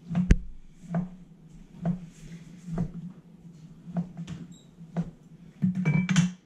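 Large kitchen knife chopping through a stack of sliced turkey breast and knocking on the cutting board, about one chop a second, with a quicker flurry of chops near the end.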